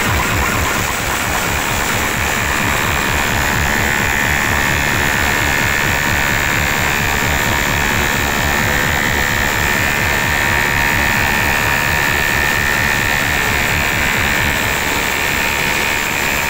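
Very loud, overdriven music blasting from truck-mounted DJ speaker stacks: a rapid pounding bass with a shrill, steady high tone that grows stronger a few seconds in.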